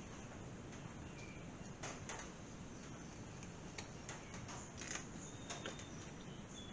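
Scattered light clicks and taps of small metal carburetor parts and tools being handled while the carburetor's gummed-up passages and jets are cleaned out, busiest from about two seconds in.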